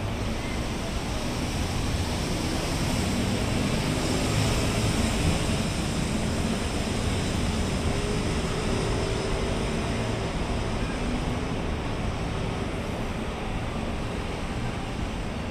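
Steady road traffic noise from cars and motorbikes passing on a multi-lane highway, swelling a little a few seconds in as vehicles go by and then easing off, with a faint engine hum underneath.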